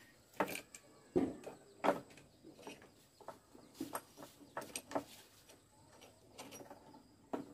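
Irregular metallic clicks, clinks and knocks as a chainsaw chain is worked off its guide bar and laid onto a wooden bench, the loudest in the first two seconds.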